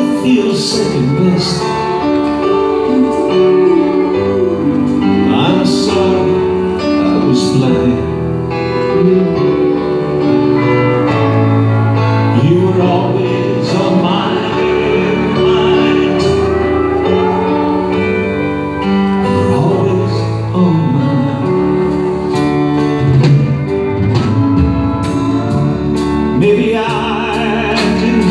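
Live country band playing a slow ballad on acoustic guitar, fiddle and drums.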